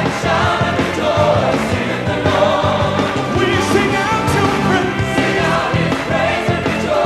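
Gospel choir singing an upbeat praise song over a band with a steady beat.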